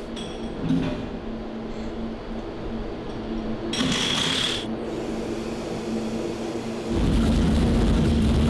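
Racing engine on a dyno, running with a steady hum, with a short hiss about four seconds in. About seven seconds in it gets much louder as the engine is brought up to load.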